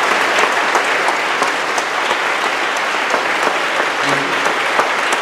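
Audience applauding steadily: many hands clapping together, a dense even patter with no break.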